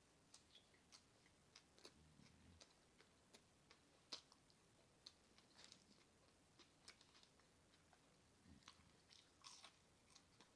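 A person chewing a mouthful of bacon cheeseburger close to the microphone: quiet, irregular wet smacks and mouth clicks, a few louder than the rest.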